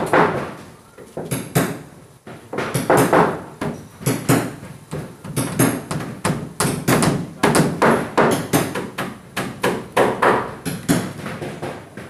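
Hammer striking on a plywood wall board in repeated sharp blows, two or three a second, with a brief pause about two seconds in.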